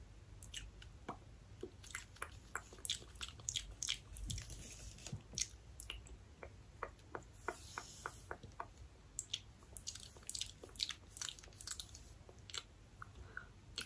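Close-miked hair handling: irregular crackles and sharp clicks as fingers and a purple plastic hair tool work through the hair, with a brief soft hiss about eight seconds in.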